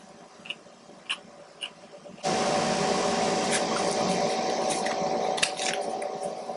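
A few faint mouth clicks from chewing, then a loud steady whirring noise with a hum that starts suddenly about two seconds in and runs for about four seconds before fading.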